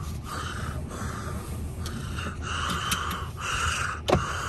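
A car's warning chime sounding over and over, about one and a half times a second, with a single knock about four seconds in.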